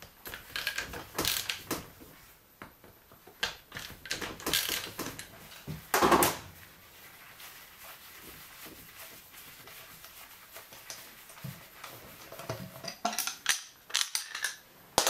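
Hand tools clicking and scraping on the valve cover of a Yamaha XT600 single-cylinder head as its screws are undone and the cover is lifted off. Scattered metal clicks, with a louder scrape about six seconds in and a cluster of clicks near the end.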